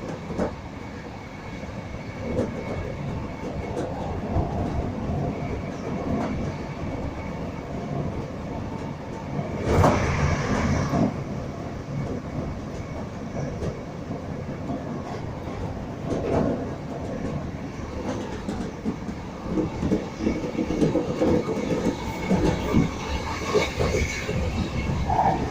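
Class 313 electric multiple unit heard from inside while running, a steady rumble and rattle of wheels on the track. About ten seconds in, a louder rush lasts a second or so.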